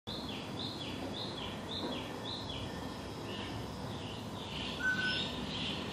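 Forest ambience: a high chirping call repeats about twice a second, then continues more loosely, over a steady background hiss. A brief thin whistle comes about five seconds in.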